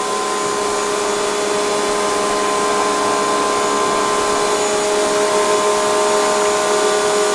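Pressure cleaner running under load, spraying water through a rotary floor-cleaner attachment pushed across a hard floor: a steady hiss of spray over a constant motor and pump hum.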